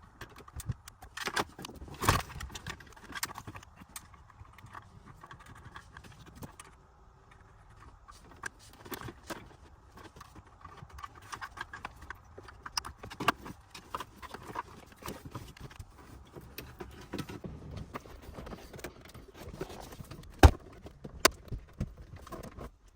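Metal retaining clips being pulled off a plastic dash bezel and snapped onto an aftermarket head unit: irregular clicks and knocks of metal on plastic, with a couple of sharper snaps near the end.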